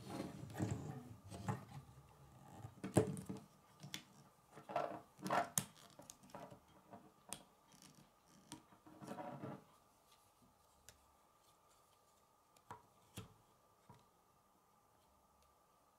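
Plastic K'nex rods and connectors being handled and snapped together: a run of sharp clicks and rattling for about the first ten seconds, then a few isolated clicks.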